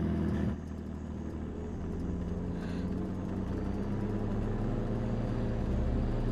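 Engine of an old open-top jeep running steadily as it drives off, a low hum that drops to a quieter, more distant sound about half a second in.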